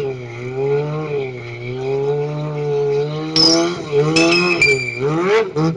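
Sport bike's engine revving up and down in a burnout, pitch rising and falling about once a second. From about halfway in, the spinning rear tyre squeals in short high-pitched bursts, and the engine sweeps up sharply near the end.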